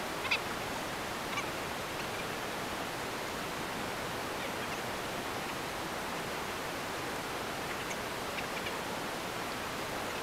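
Steady outdoor background hiss, like wind on the microphone, with a few faint, short high chirps or ticks scattered through it.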